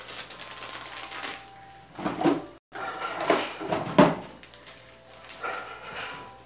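Kitchen handling sounds: an irregular run of clicks, rustles and knocks of things being picked up and set down. The sound cuts out for a moment just past the middle.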